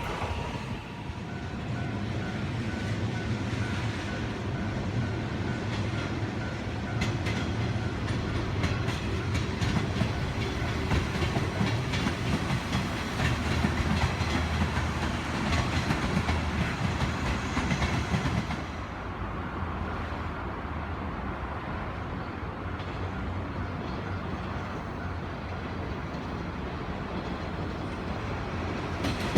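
Japanese passenger train running along the track: a steady rumble with rail clatter. The hiss drops away and it grows a little quieter about two-thirds of the way through.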